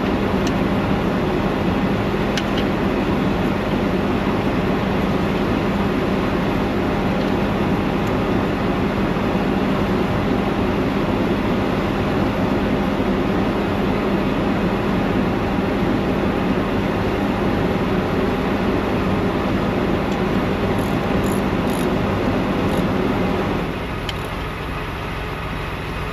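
Heavy diesel truck engine idling with a steady drone and a constant low hum. The drone drops in level about 23 seconds in.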